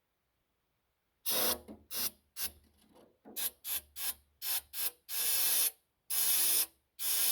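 Aerosol can of ether starting fluid spraying in a string of short hissing bursts, then three longer sprays, priming a diesel that won't start on its own.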